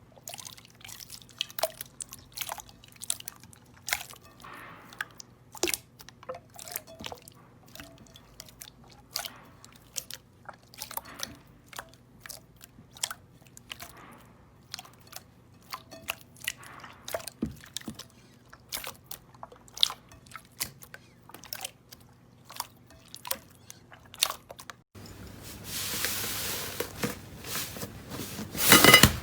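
Slime being squeezed and pressed by hand, giving a stream of sharp, irregular crackly pops and clicks. About 25 seconds in the sound switches abruptly to a denser, hissing crunch, with one loud burst near the end.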